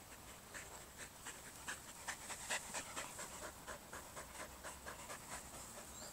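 Border collie panting quickly and faintly, about five short breaths a second, out of breath from running.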